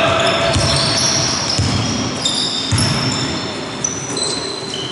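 A basketball bouncing on a wooden sports-hall floor, a thud about every second, mixed with short high squeaks of trainers on the floor and the echo of a large hall.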